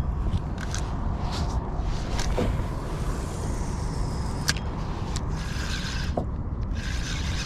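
Steady low rumble of wind and water on the microphone on a fishing kayak, with a few sharp clicks and brief hissy rustles from the rod and spinning reel as a lure is cast and retrieved again.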